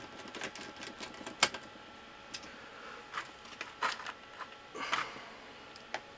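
Irregular light clicks and ticks, with a couple of short scrapes, from small screws and a screwdriver being worked into a circuit board inside a metal network-switch case. One click about a second and a half in is the sharpest.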